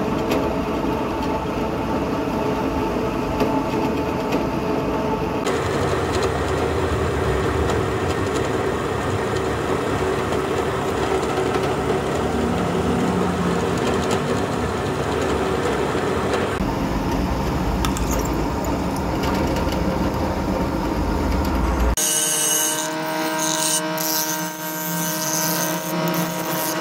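A bench drill press runs, its bit drilling into a spring-steel knife blank, a steady mechanical drone. Near the end it gives way to a bench grinder running with a steady whine.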